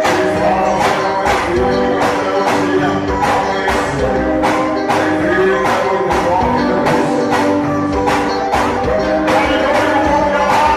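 Music with a steady beat of about two strokes a second, over sustained instrument tones.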